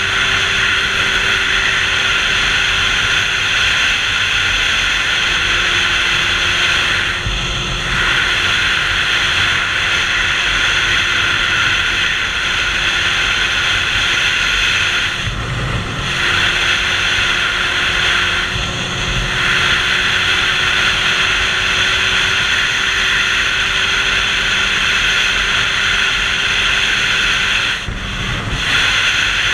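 Wind rushing over a helmet-mounted camera on a motorcycle at highway speed, with the bike's engine droning steadily underneath. The wind noise drops briefly a few times, as when the rider turns his head.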